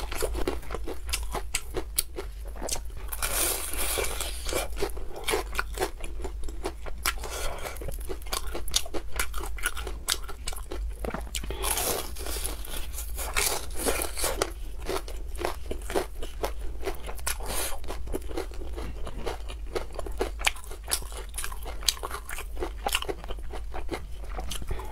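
Close-miked crunching and chewing of a deep-fried breaded chicken cutlet: the crisp crumb coating crackles irregularly with each bite.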